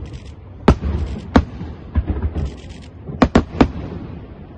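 Fireworks display: sharp bangs of aerial shells bursting, about six in all, with a quick run of three a little past three seconds in. Crackling comes between the bangs.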